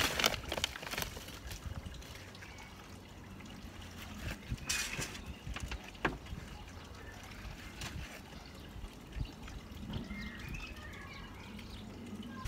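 Gloved hands working potting compost into small fibre pots: soft rustling and crumbling of soil, with a few louder scrapes and a sharp click about halfway.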